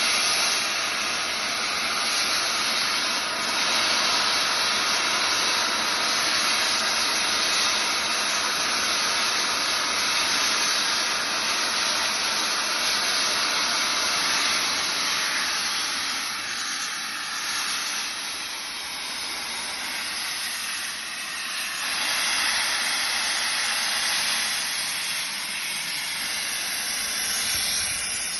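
Steady hiss of steam escaping from LMS Stanier Black Five steam locomotive 44871. It eases for a few seconds past the middle, then grows again.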